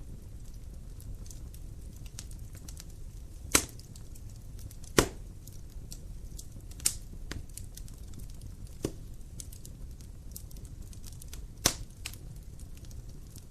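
Fire burning in a fireplace, crackling steadily over a low rumble of flame, with about five sharp, loud pops scattered through.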